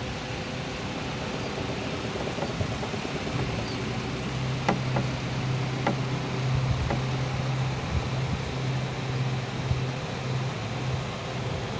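Aichi SH15B aerial manlift truck's hydraulic boom drive running as the boom moves: a steady low hum comes in a few seconds in and holds, with three sharp clicks around the middle.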